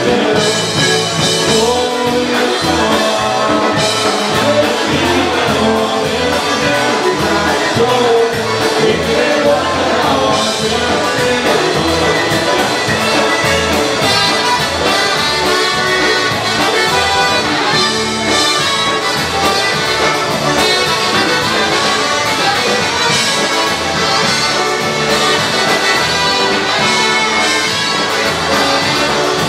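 Polka band playing, accordion and brass over a steady beat.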